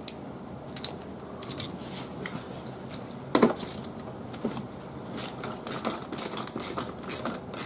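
Handling noise as a golf cart's rubber floor mat is lifted and pulled loose from the floorboard: scattered light clicks, knocks and scraping, with one louder knock about three and a half seconds in.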